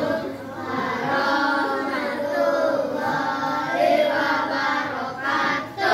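A group of children singing together, the song stopping near the end.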